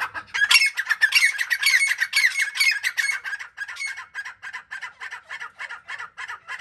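Francolins (teetar) calling: a fast run of short, sharp, squawking notes, several a second, loudest in the first half and growing fainter toward the end.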